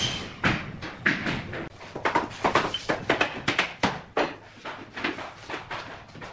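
Sharp wooden knocks and clacks, about a dozen at uneven intervals, as bamboo tongue-and-groove floorboards are set down and tapped into place.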